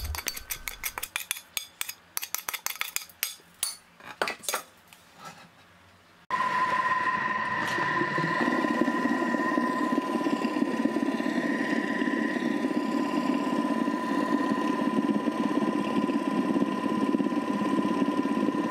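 A spatula scraping and knocking against the Thermomix's steel mixing bowl in a quick run of clicks. About six seconds in, the Thermomix motor starts abruptly and runs steadily with a high whine, whipping half-frozen cocoa ice cream mixture.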